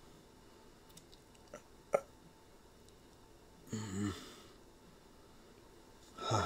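A few faint mouth clicks from the narrator, then a short breathy vocal sound about four seconds in and another near the end.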